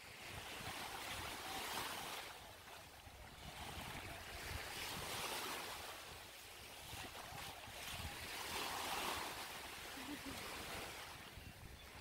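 Small sea waves breaking and washing in shallow water, swelling and fading every couple of seconds, with wind buffeting the microphone.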